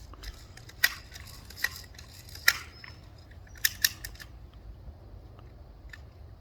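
BB gun firing: a string of sharp snapping shots roughly a second apart, two of them in quick succession, then a fainter snap near the end.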